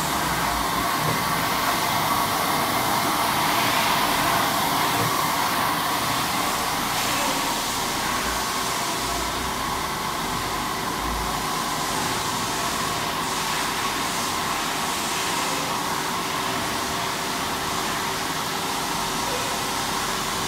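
Yama Seiki BM-850 CNC vertical machining center powered up and running, its table traversing: a steady whir of motors and fans. A faint steady tone comes in about seven seconds in.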